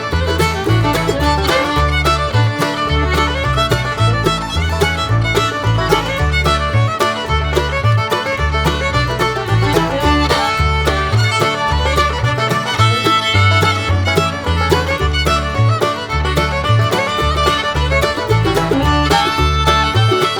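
Upbeat background music with fiddle and a steady plucked bass beat, in a bluegrass-country style.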